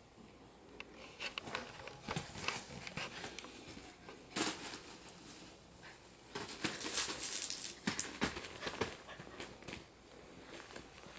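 A seven-week-old goldendoodle puppy moving and pawing on a fleece blanket laid over a plastic tarp: soft rustling and crinkling with small clicks and pats, in irregular bursts, with a longer busier stretch a little past the middle.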